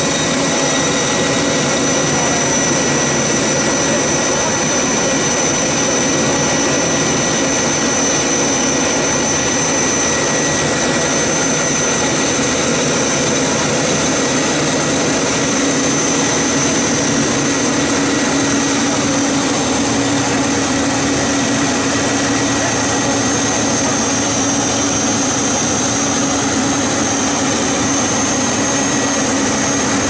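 4YL-5 combine harvester's 160-horsepower Yuchai diesel engine and threshing and unloading gear running steadily at working speed while it unloads sorghum grain. The result is a loud, unbroken mechanical drone with a steady high whine over it.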